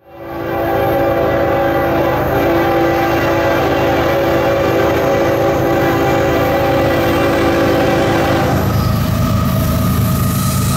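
A CSX freight train's diesel locomotive sounding one long, steady horn chord as it approaches, over the low rumble of the train. The horn cuts off about nine seconds in, leaving the locomotives' engine rumble as they draw near.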